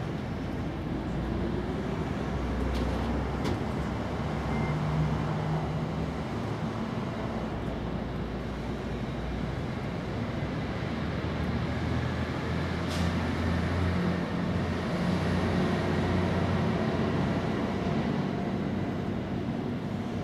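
Steady low background rumble of vehicle engines, with a drifting low hum, and a single sharp click about two-thirds of the way through.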